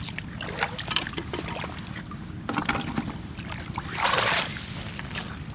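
Footsteps and small splashes of someone moving over wet rocks and shallow water on a rocky shore: scattered clicks and brief sloshes over a steady low rumble, with a louder splash about four seconds in.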